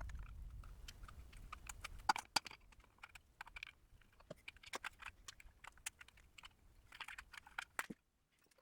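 Irregular light clicks and taps of hands working on a drill press's V-belt drive, with a low rumble in the first two seconds.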